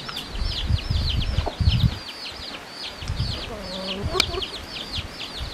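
Domestic chicks peeping continuously, several short high downward-sliding peeps a second, with a hen giving a low cluck about halfway through. Low rumbles come and go underneath.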